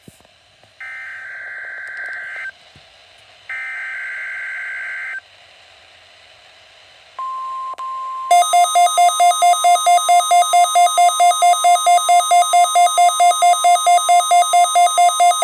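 Weather radio test: two buzzy bursts of digital data tones, then the steady 1050 Hz National Weather Service warning alarm tone starting about seven seconds in. About a second after the tone starts, a loud, harsh electronic beeping, about four beeps a second, sounds over it: a receiver's alert set off by the alarm tone.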